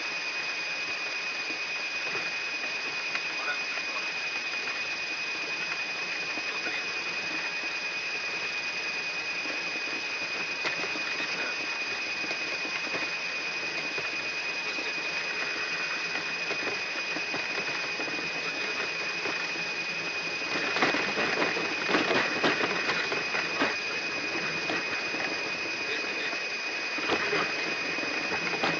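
Yak-42D cockpit voice recorder audio during the takeoff roll: a steady hiss of cockpit noise with a constant high-pitched tone. A spell of rattling and clatter starts about 20 seconds in and lasts a few seconds, and a shorter rattle comes near the end.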